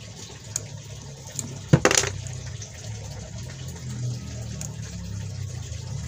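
Handling noise from a small plastic electronics case and its circuit board being turned over in the fingers, with a cluster of sharp clicks a little under two seconds in and a few fainter ticks, over a steady low hum.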